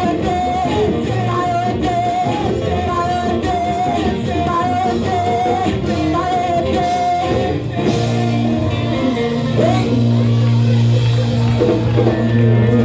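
Live church worship music: singers on microphones with a band of electric guitar and keyboard. The sung melody carries the first half, then gives way to held, sustained chords for the rest.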